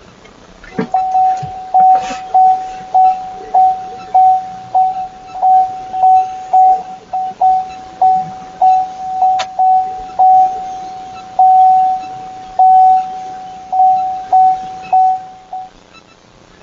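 Electronic chime beeping over and over at one steady pitch, about one and a half beeps a second for some fifteen seconds, a few beeps held a little longer than the rest.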